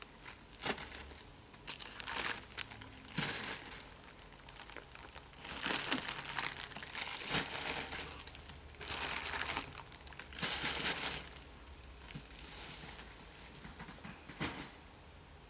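Packaging being handled: irregular crinkling and rustling in bursts, with the loudest stretches around six, nine and ten to eleven seconds in.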